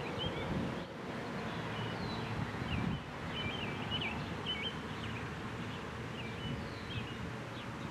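Small birds chirping many times in quick, squiggly calls over a low rumble of wind on the microphone, with a faint steady tone underneath.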